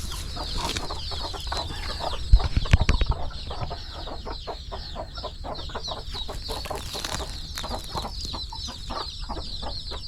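A flock of chickens clucking and calling, with constant high-pitched peeping throughout. A brief cluster of loud low thumps comes about two and a half seconds in.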